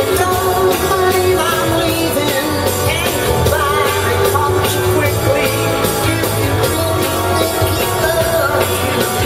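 A live soul band with a brass section, electric guitars and a lead singer playing a Northern Soul song, heard from the audience in a large arena.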